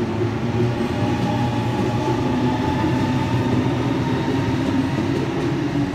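Sydney Trains B-set (Waratah Series 2) double-deck electric train pulling away past the platform, a steady rolling rumble with a faint whine held over it.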